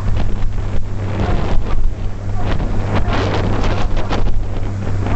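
Ferry's engine running with a steady low drone, under a loud rush of wind buffeting the microphone.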